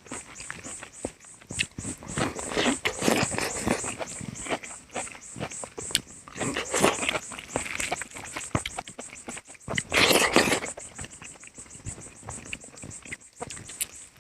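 Close-up mukbang eating sounds: chewing and smacking of rice and spicy chicken curry, coming in irregular bursts with louder stretches.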